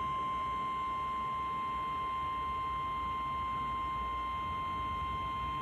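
NOAA Weather Radio's 1050 Hz warning alarm tone: a single steady high-pitched tone from a weather radio's speaker, held at an even level throughout. It signals that a warning, here a severe thunderstorm warning, is about to be read out.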